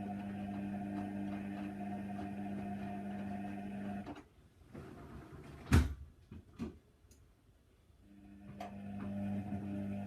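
Hoover Nextra HNWL 7146 washer-dryer's drum motor humming steadily as it tumbles the wash, then stopping about four seconds in. In the pause there is a sharp knock, followed by a smaller one. Near the end the motor starts up again for the next turn of the drum.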